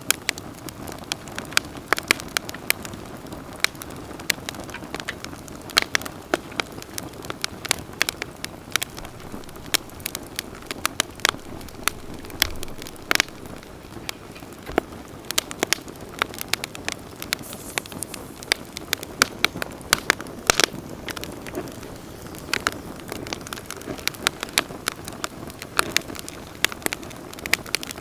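Wood campfire burning with frequent sharp crackles and pops over a steady low hiss of flames.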